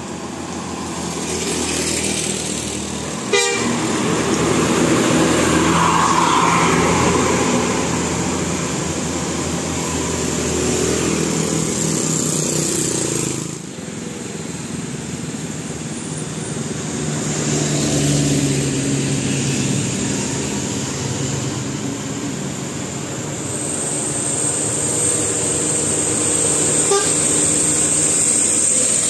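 A bus's telolet horn sounding in stretches of held, changing tones over running vehicle noise. A sharp click comes about three seconds in.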